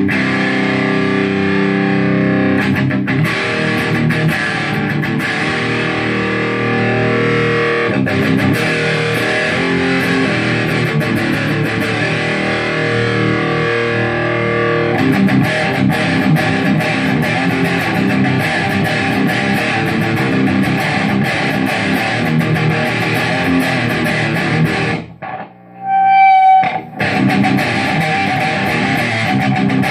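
Electric guitar fitted with Dialtone pickups, its tone knob rolled for more bass attack, played without vocals: ringing chords at first, then faster rhythmic strumming from about halfway. Near the end the playing breaks off briefly for a short sliding high note before the strumming resumes.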